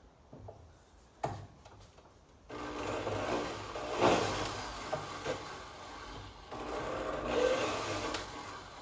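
A drill-driven Stripmeister wire stripper running as heavy 3 gauge wire is pulled through and its insulation is scraped off. The stripping starts about two and a half seconds in, after a sharp click about a second in, and eases off near the end.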